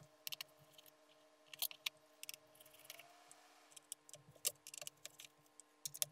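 Faint, irregular clicks and light ticks of a small precision screwdriver being handled and worked on the screws of a MacBook Pro's aluminium bottom case.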